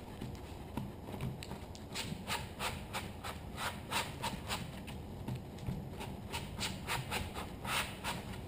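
Hands patting and rubbing griptape down onto a skateboard deck: an irregular run of short pats, several a second, pressing the grip's adhesive firmly onto the board.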